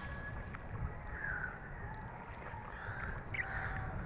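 Wind on the microphone and choppy water lapping, a steady low rumble, with a few faint short calls from the distance, about a second in and again near the end.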